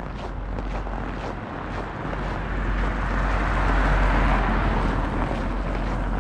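A car driving past close by on a snowy road, its tyre noise swelling to a peak about four seconds in and then easing off as a second car approaches. Footsteps crunch on packed snow, with a low wind rumble on the microphone.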